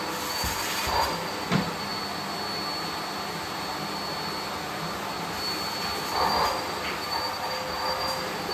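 Vacuum cleaner running steadily with a thin high whine over its airflow noise, with a sharp knock about one and a half seconds in.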